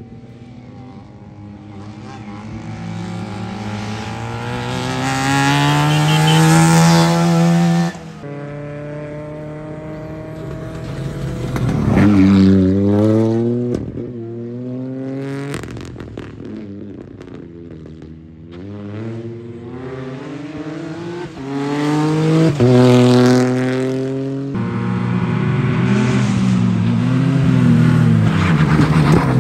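Rally car engines accelerating hard, their pitch rising steeply through the revs and falling away as a car passes. The sound is heard in several short stretches, each ending in an abrupt cut.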